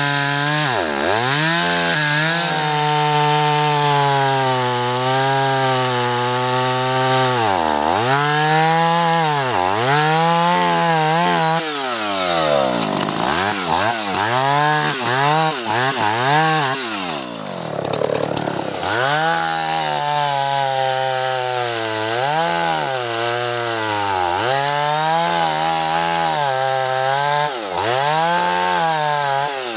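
Two-stroke gas chainsaw cutting into a large tree trunk at full throttle. The engine's pitch sags and recovers over and over as the chain bogs down in the cut and frees up, with one deeper drop a little past halfway before it revs back up.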